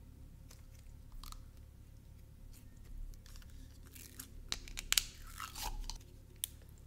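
Thick, glossy slime being pulled from its tub, stretched and folded by hand, giving quiet sticky clicks and small pops, with a quick run of sharper snaps about five seconds in.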